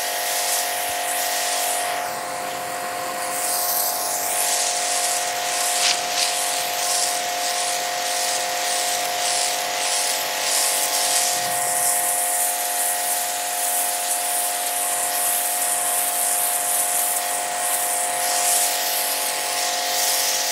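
Electric pressure washer running with a steady motor-pump hum while its high-pressure jet hisses against wet concrete. The spray hiss rises and falls as the lance is swept across the floor.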